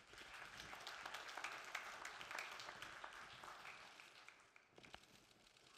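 Audience applauding, faint and spread out, swelling at the start and dying away over the last couple of seconds.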